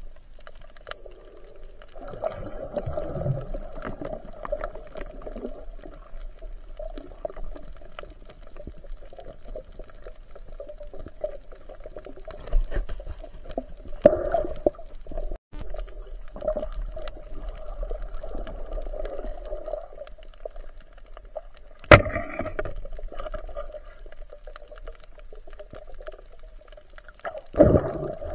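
Muffled underwater sound through a camera housing: a steady hum of moving water that swells and fades every few seconds, with scattered faint clicks. A sharp knock comes about 22 seconds in and another near the end.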